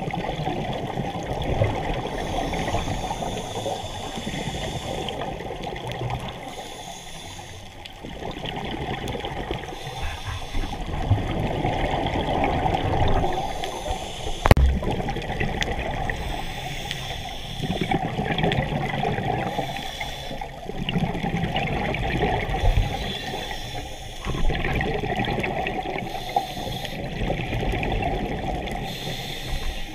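Scuba diver breathing through a regulator, heard underwater: exhaled bubbles rush and gurgle in surges every few seconds. A single sharp click about halfway through.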